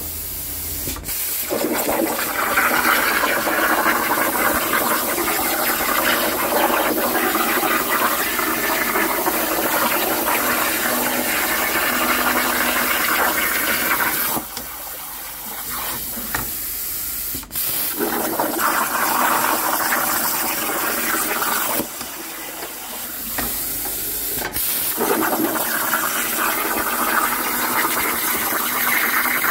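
CNC plasma torch cutting steel plate: a steady, loud hiss from the arc and air. It cuts out twice for two or three seconds, and each time a sharp click comes as the arc starts again.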